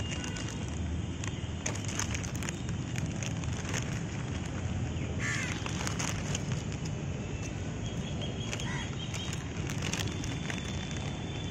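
A steady low rumble with crackling and scattered clicks, and a house crow cawing once about five seconds in.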